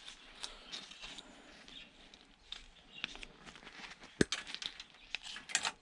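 Components being worked off a circuit board: light scratching and scattered small clicks, with one sharp click about four seconds in and a quick run of clicks near the end.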